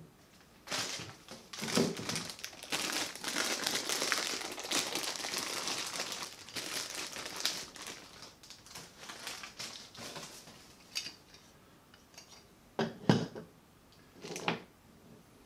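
Clear plastic packaging bag crinkling as the microphone shock mount and mounting hardware are unwrapped, a dense crackle for several seconds, then scattered clicks and a few light knocks of small parts handled on a tabletop near the end.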